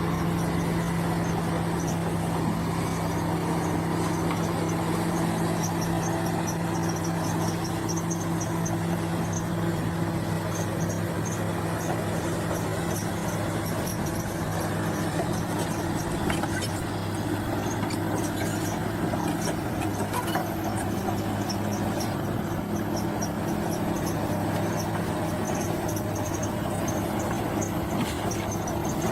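Bulldozer's diesel engine running steadily at a constant pitch, with a faint high pulsing chatter above it.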